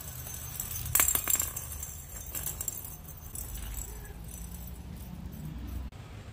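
Small hollow plastic cat-toy balls jingling and rattling as kittens bat and roll them across a concrete floor, with a louder burst of jingling about a second in.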